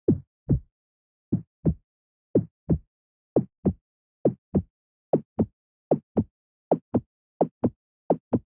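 Heartbeat sound effect: paired 'lub-dub' thuds that speed up steadily, from about one beat a second to nearly two.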